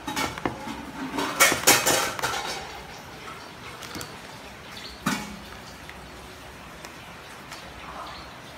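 Kitchen utensils and dishware clattering: a quick flurry of clinks and knocks over the first two seconds or so, then one sharp knock about five seconds in.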